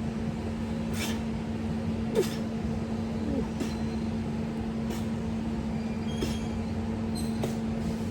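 Gym room tone: a steady electrical or ventilation hum, with about half a dozen short metallic clinks spread through it, such as weights being handled.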